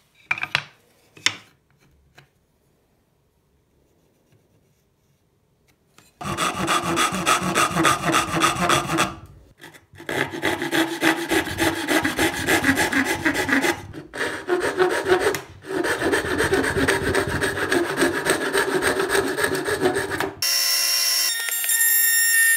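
A couple of knocks, then wood being sawn in several long spells broken by short gaps. Near the end a machine runs with a steady tone and begins to wind down, its pitch falling.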